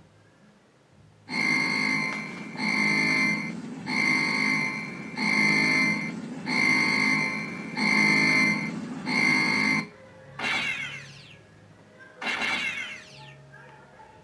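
Sound-effects board of a Viper scale model playing its clips: an alarm-like horn blares seven times, about one and a quarter seconds apart, followed by two quick falling electronic sweeps.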